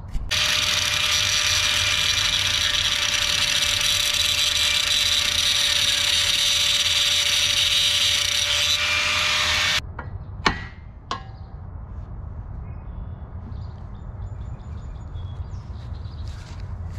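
Angle grinder grinding the edge of a steel shovel blade: a loud, steady, hissing metal-on-abrasive noise with a constant whine, running about nine seconds and then cutting off. Two sharp knocks follow shortly after.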